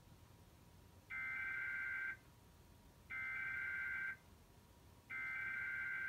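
Emergency Alert System SAME header data bursts from a television: three buzzy two-pitch bursts, each about a second long with a second's pause between them, the digital code that opens a Required Weekly Test.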